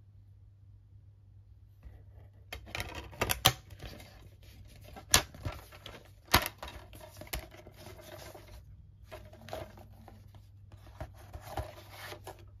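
A plastic multi-disc DVD case and its discs being handled: rustling and scraping of plastic with several sharp clicks, starting about two seconds in.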